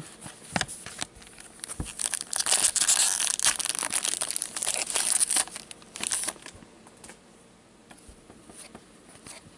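Hockey card pack wrapper being torn open and crinkled by gloved hands. It is a dense, crackling rustle that runs for about four seconds, with a few scattered clicks of cards being handled before it, and it dies down near the end.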